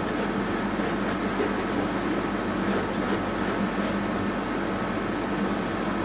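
Steady background hum of room noise, with no distinct events.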